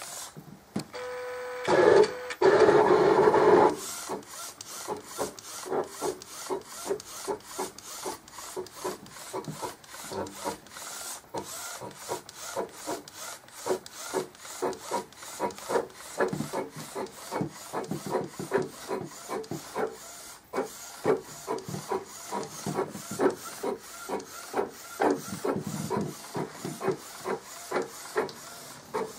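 Epson R1400 inkjet printer converted to a UV-LED flatbed, printing: the print-head carriage shuttles back and forth, each pass a short whirring rub, about two to three a second. Near the start, for about two seconds, a louder steady motor hum with a tone in it.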